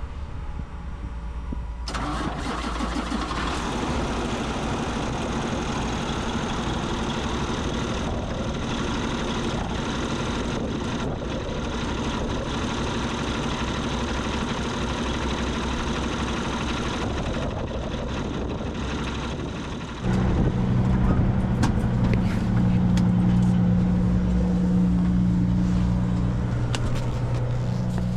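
A steady mechanical running noise, then about twenty seconds in a louder engine starts up and runs with a deep, steady hum.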